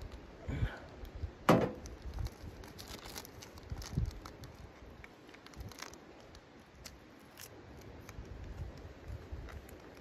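A ceramic mug set down on a steel wood-stove top with one sharp knock, followed by smaller clicks and light rustling and crinkling as a tea bag is handled.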